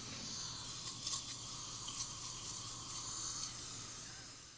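Dental surgery equipment running with a steady hiss over a low hum, dropping away about four seconds in.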